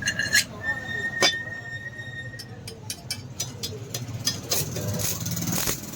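Hammer blows on steel during the forging of a spear head from a truck leaf spring. There are a few sharp strikes, and one of them leaves a clear ringing note that hangs for about two seconds.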